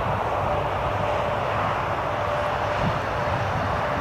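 Timber freight train hauled by a Finnish Sr1 electric locomotive approaching very slowly in the distance: a steady low rumble with a faint steady hum over it.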